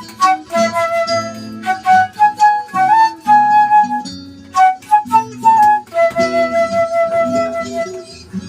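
Live flute playing a melody of quick notes and longer held ones, with one long sustained note near the end, over a lower accompaniment.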